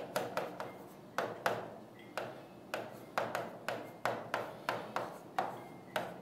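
Pen tip tapping and clicking on a digital writing board as an equation is written: short sharp taps at an irregular pace, about two or three a second.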